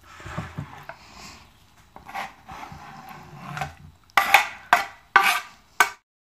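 Chef's knife scraping chopped eggplant off a wooden cutting board into a glass bowl: softer rubbing scrapes at first, then four short, loud scrapes in quick succession before the sound cuts off.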